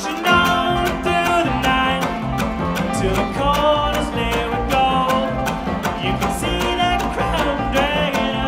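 Live bluegrass band playing an instrumental passage on acoustic guitar, banjo, mandolin and upright bass, with quick picked notes over a steady bass line. The band comes in together with a sharp attack right at the start.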